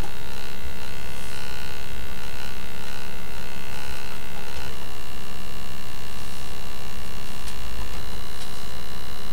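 Steady electrical hum and buzz with several high whining tones, which shift in pitch about halfway through. It comes from the model railway's track power and computer-controlled motor drive while the N-gauge train stands still.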